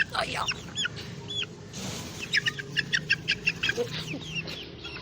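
Young chickens cheeping: quick runs of short, high-pitched peeps, with a brief break and a short rustle about two seconds in.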